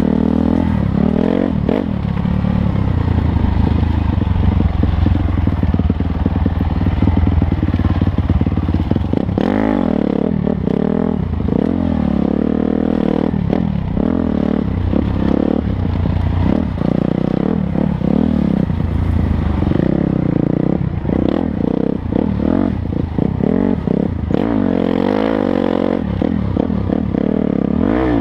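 Off-road dirt bike engine under the rider, its pitch rising and falling again and again as the throttle is opened and closed along a rough dirt trail.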